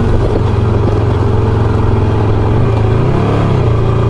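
Ducati motorcycle engine running steadily while riding a gravel track, heard from a camera mounted on the bike. The pitch rises briefly about three seconds in as the throttle opens, then settles.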